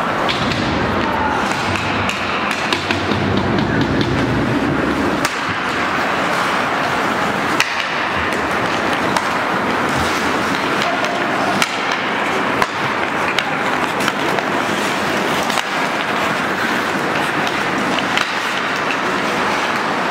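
Ice hockey skates scraping and carving the rink ice under a steady hiss, with sharp clacks of sticks and puck at irregular moments, the loudest about a third of the way in and again just past the middle.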